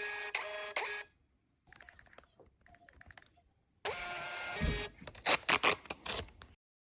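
Small thermal label printer's feed motor whirring in two short runs about three seconds apart, followed by a quick series of sharp, loud clicks.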